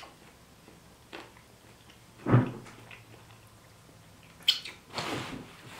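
People chewing and biting into toasted BLT sandwiches, with small clicks, a louder short sound a little over two seconds in, and a sharp sound and a short noisy one near the end.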